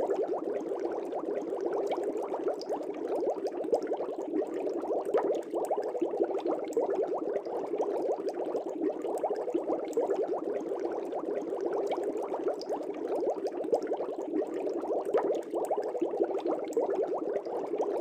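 Air bubbles streaming steadily through aquarium water: a continuous, rapid crackle of many small bubble pops, fairly low-pitched, with no let-up.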